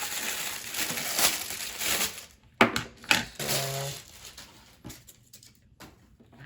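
Kettle packaging being crinkled and pulled apart, followed by a few sharp clicks and knocks as the parts are handled.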